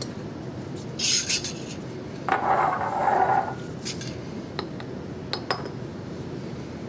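Laboratory glassware and a porcelain Büchner funnel handled on a bench: a short hiss about a second in, then about a second of scraping, then a few light clinks as glass is set down.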